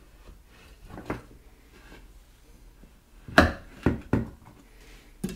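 Chef's knife cutting through a chocolate-topped bar on a wooden cutting board, the blade knocking against the board. There is a soft knock about a second in, a quick run of three sharp knocks a little past three seconds, and another knock near the end.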